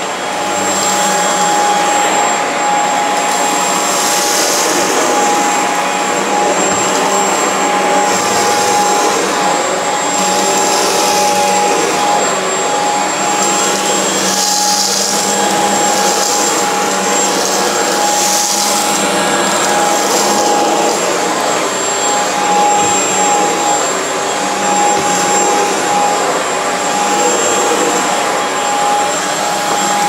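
Shark Stratos corded stick vacuum running on carpet, its floor head pushed back and forth: a steady motor whine with a high hiss that swells every couple of seconds.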